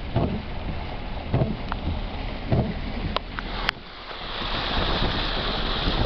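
Car driving along a flooded dirt road in rain, its tyres splashing and hissing through running water, heard from inside the cabin with some wind noise. A sharp click comes just past halfway, after which a steady hiss builds up.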